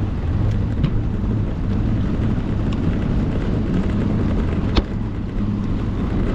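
Two-stroke outboard motor running steadily as the boat moves along, with wind noise on the microphone. A single sharp click comes about five seconds in.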